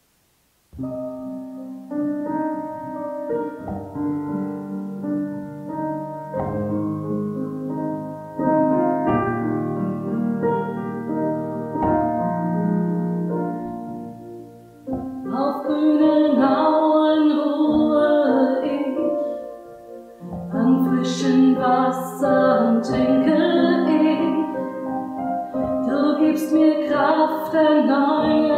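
Roland digital piano playing a slow introduction, then a woman's voice singing with the piano accompaniment from about halfway through.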